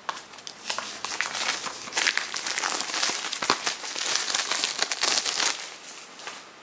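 Plastic shrink wrap being torn and peeled off a CD, a dense crinkling and crackling that is loudest through the middle and dies away near the end.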